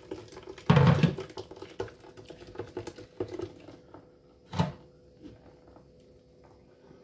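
Plastic blender jar, plastic strainer and pitcher clattering as thick blended carambola pulp is poured and strained: a loud knock about a second in, scattered small clicks, another sharp knock past the middle, then quieter.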